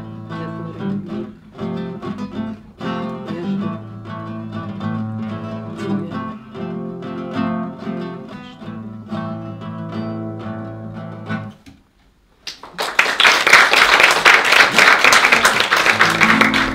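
Nylon-string classical guitar playing the closing phrase of a song and stopping about 11 seconds in. After a short pause, an audience bursts into loud applause.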